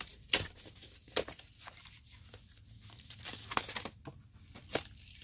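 Small cardboard box being pried open by hand: scratchy tearing and crinkling of cardboard and paper, broken by several sharp snaps as the flap and seal give way.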